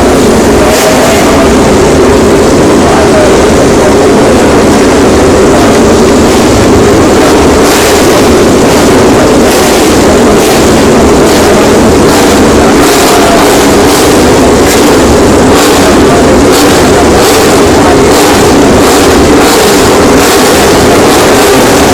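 Grand Prix racing motorcycles at full noise, a loud, continuous, unbroken engine din with no let-up.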